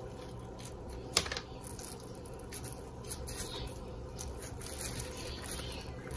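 Soft rustling and crinkling of plastic wrap and dough being handled as a plastic cookie cutter is pressed through rolled-out dough and the scraps are pulled away, with one sharp tap about a second in.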